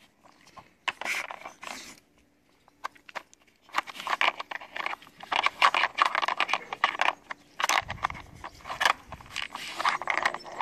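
A dog sniffing and nosing at a Nina Ottosson Dog Brick plastic puzzle feeder, with short sniffs and the plastic blocks and cones clicking and scraping in their tracks. A brief lull comes about two seconds in, and the sounds grow busier and denser from about four seconds on.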